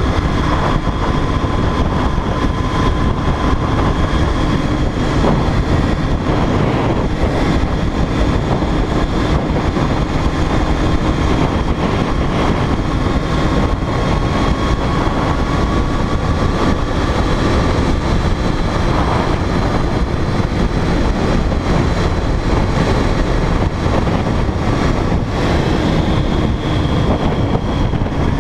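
Sport motorcycle engine running at a steady cruise, its note drifting slightly up and down, under a constant rush of wind and road noise.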